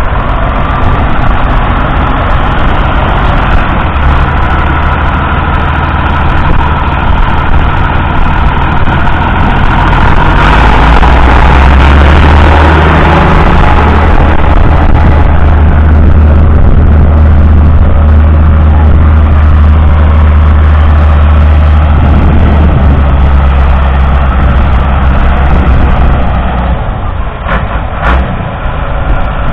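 Massey Ferguson 6170 tractor's 6.0-litre six-cylinder diesel engine running steadily and loud. About ten seconds in it grows louder and deeper and holds there, then eases off a few seconds before the end, with a few short clicks near the end.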